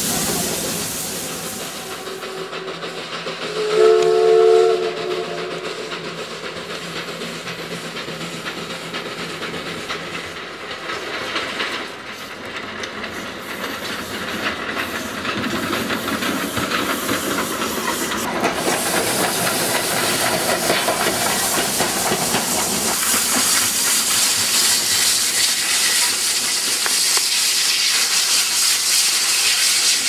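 Steam locomotive whistle blowing once, a loud blast of a few tones lasting about a second and a half, about four seconds in. Around it is the steady hiss and running noise of the passing steam engine, and the hiss of steam grows louder through the second half.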